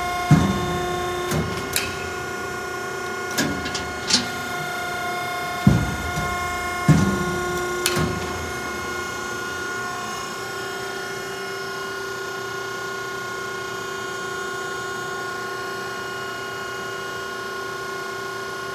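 Hydraulic metal shear running with a steady hum of several tones. About eight sharp clanks come in the first eight seconds or so, then only the steady hum remains.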